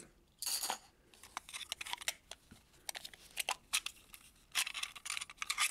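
Hands handling small hard-plastic toy pieces and their packaging: scattered light clicks and taps, with short crinkling rustles about half a second in and again near the end.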